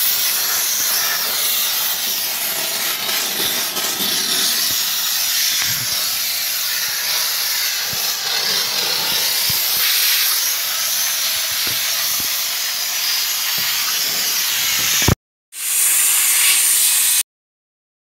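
Kärcher handheld steam cleaner jetting steam: a steady, loud hiss with a few faint taps. The hiss breaks off for a moment about fifteen seconds in, returns briefly, then stops abruptly near the end.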